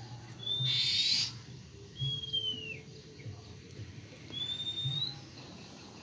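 A small bird in an aviary giving a thin whistled call three times, about two seconds apart, each under a second long, some sliding up and one sliding down. A brief rustle sounds under the first call.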